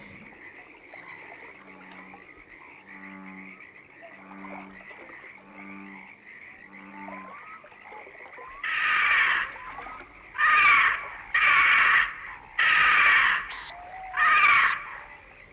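Frogs croaking in a stock swamp ambience: five low, evenly spaced croaks over a steady high chirring, then from about halfway a run of louder raspy calls of about a second each.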